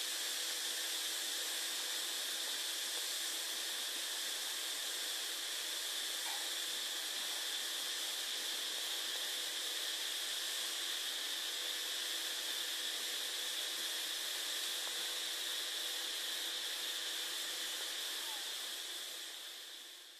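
A steady, even hiss with two faint steady hums under it, unchanging throughout and fading out near the end.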